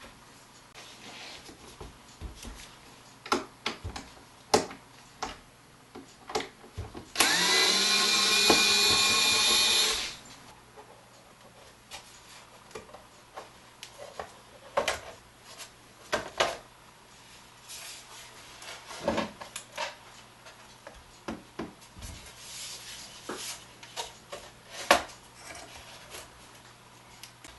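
Cordless electric screwdriver running for about three seconds, its motor whine rising as it spins up, backing a screw out of a plastic electronics case. Around it are scattered clicks and knocks of the plastic case parts being handled and pulled apart.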